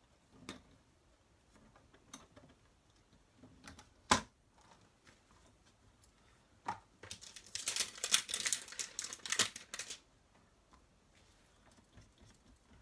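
Craft-table handling of clear rubber stamps: a single sharp click about four seconds in, then about three seconds of quick, scratchy rubbing, like a stamp being scrubbed clean on a cloth.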